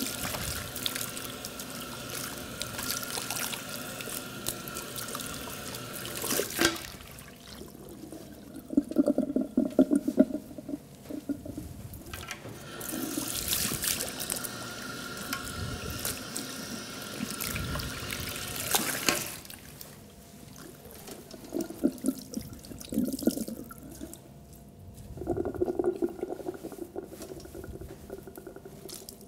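Handheld shower sprayer spraying water onto wet hair over a salon backwash basin to rinse out shampoo. The spray runs for about six seconds, stops, and runs again for about six seconds. Between and after the spraying come softer, uneven wet sounds as hands work and squeeze the soaked hair.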